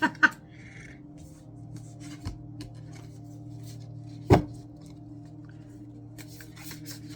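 A deck of oracle cards being shuffled by hand: soft rubbing and light clicks with a few sharp slaps of the cards, the loudest about four seconds in. A steady low background music drone runs underneath.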